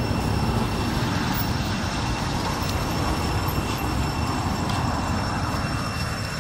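Steady rumbling background noise, heaviest in the low end, with a faint thin high whine above it; it eases slightly near the end.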